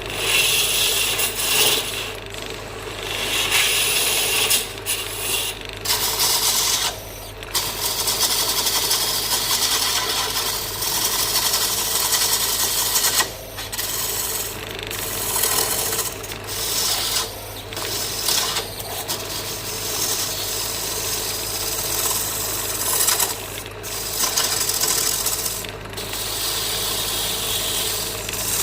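Wood lathe running, with a turning tool scraping and cutting the spinning wood in a steady rasp over the lathe motor's low hum. The cutting noise drops out briefly about ten times, as the tool comes off the wood.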